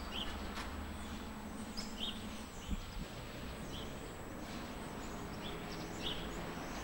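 A small bird chirping, about six short high chirps spread through a few seconds, over a faint steady background hum and hiss.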